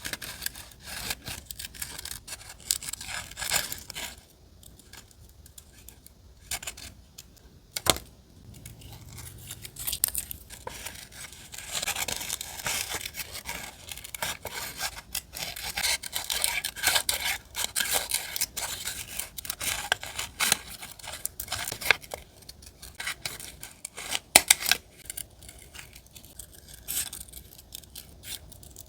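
Close-up paper-crafting sounds from collage journaling: paper being handled and torn, with scratchy rubbing and many small sharp clicks. The scratching is busiest in the middle stretch.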